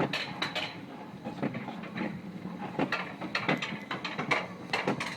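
Roller coaster cart clattering along its track: a run of irregular sharp clicks and knocks, several a second, over a low rumble.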